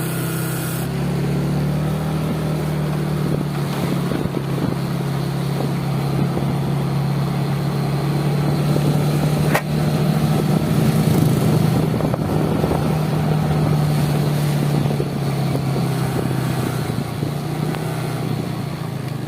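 A vehicle engine running steadily while travelling on the road, with road and wind noise. A single sharp click about ten seconds in.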